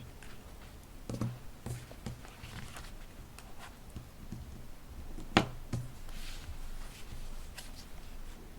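Hands handling paper: light rustling of sheets and soft taps and clicks, with one sharp click about five seconds in.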